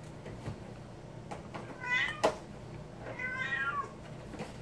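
A house cat meowing twice, a short meow about two seconds in and a longer one about a second later, with a sharp click just after the first.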